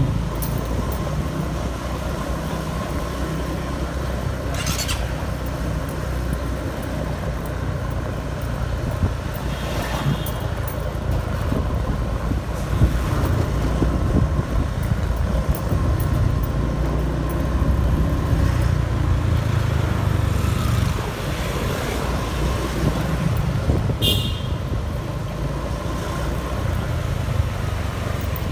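City street traffic heard while riding along: a steady engine and road rumble with cars and motorbikes passing. A short high beep sounds about ten seconds in, and again more clearly near the end.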